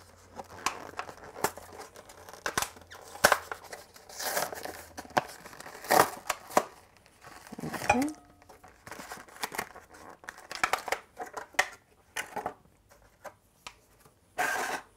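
A printed plastic toy packet being torn open and crinkled, in a run of irregular sharp rustles and tearing strokes, with a longer tearing rustle near the end.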